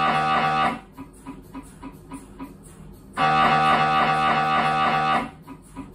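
Siemens Magnetom Symphony Maestro Class 1.5 T MRI scanner running a scan sequence, its gradient coils making a loud, pitched buzz. The buzz stops under a second in, gives way to quieter rapid ticking at about four or five a second, returns for about two seconds from three seconds in, then drops back to ticking.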